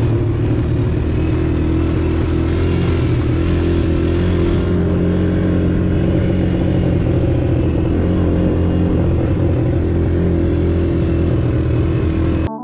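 Quad bike (ATV) engine running steadily while riding, with a dense low rumble. It cuts off suddenly at the very end.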